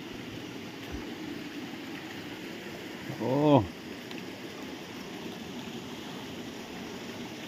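Steady rushing noise like running water. About halfway through, one short voiced call rises and falls in pitch and is the loudest sound.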